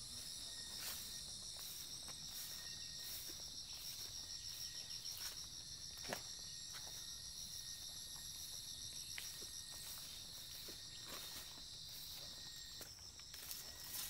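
Steady high-pitched insect chorus, a fine rapid pulsing buzz, part of which drops out near the end. Scattered faint clicks and rustles of footsteps through grass.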